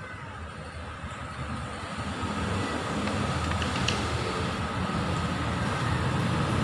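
Yamaha R25 motorcycle's parallel-twin engine running, growing gradually louder.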